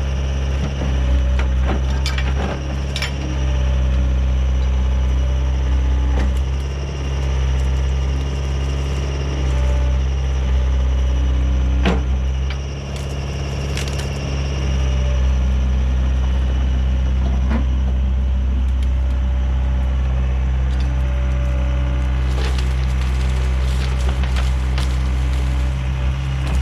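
An excavator's diesel engine runs steadily, with scattered sharp cracks and snaps of brush and branches being grabbed and crushed.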